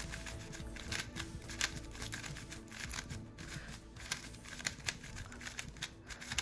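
X-Man Tornado V3 3x3 magnetic speed cube being turned rapidly, its plastic layers clicking and clacking in quick, irregular runs of turns.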